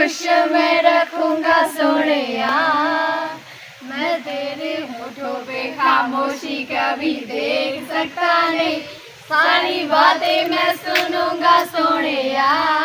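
A group of young women singing a Hindi song together, unaccompanied, in untrained voices with long held, wavering notes.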